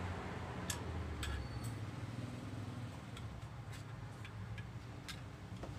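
Light clicks and taps, about eight scattered over a few seconds, from small metal and plastic parts being handled during an unboxing, over a low steady hum.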